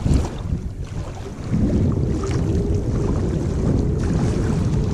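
Wind buffeting the microphone, a rough low rumble that picks up to a stronger, steady gust about a second and a half in, over small waves lapping on a rocky lakeshore.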